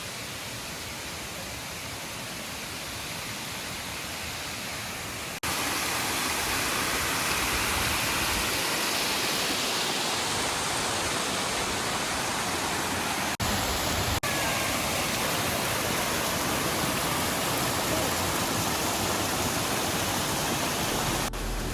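Waterfall rushing in a steady hiss of falling water, stepping up louder about five seconds in, with two brief breaks near the middle.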